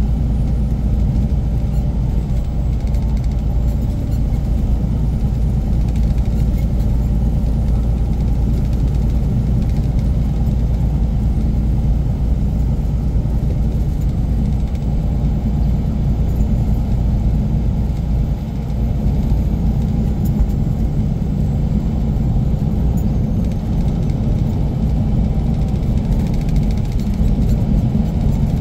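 Semi-truck's diesel engine running steadily with low road rumble, heard from inside the cab while hauling a heavy 43,000-pound trailer load. There is a brief dip in the sound about two-thirds of the way in.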